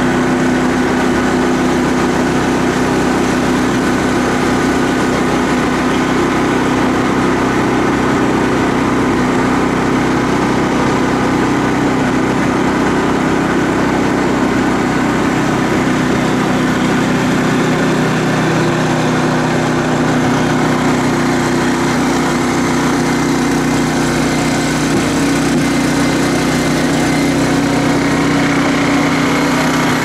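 Small engine of a forestry monorail carrier running steadily as the carrier moves along its steel rail, a constant drone with no change in loudness.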